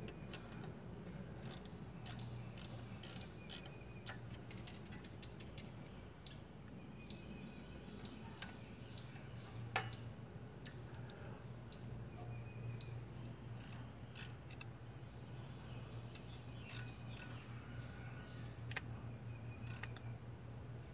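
Scattered light metallic clicks and taps of a screwdriver working on a small go-kart engine, clustered a few seconds in, with one sharper knock about ten seconds in, over a steady low hum.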